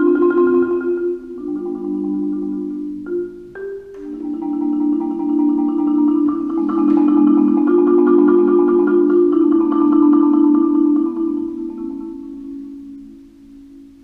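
Solo concert marimba played with mallets: sustained rolled chords in its low-middle range that swell louder about four seconds in, then fade away near the end.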